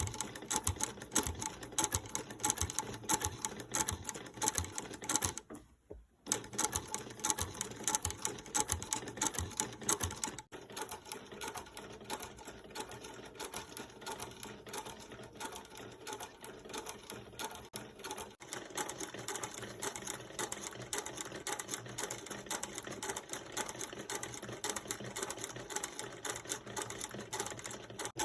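Sewing machine stitching leather: a fast, even run of needle strokes. It stops briefly about six seconds in, then runs on, with the sound shifting abruptly twice, near ten and eighteen seconds.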